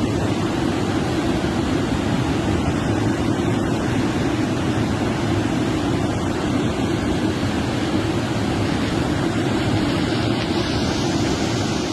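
Steady, loud rushing noise with a strong low rumble; a higher hiss grows about ten seconds in.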